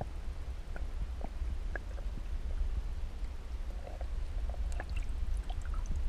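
Muffled underwater sound picked up by a camera below the surface of river water: a steady low rumble with scattered faint clicks and ticks.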